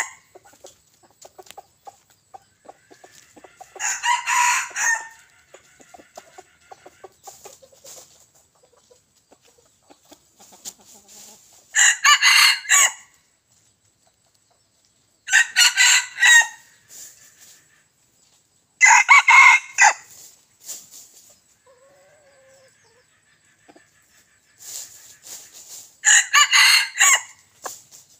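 Young junglefowl roosters crowing in short calls, five times, several seconds apart. Faint clucks and rustles come in between.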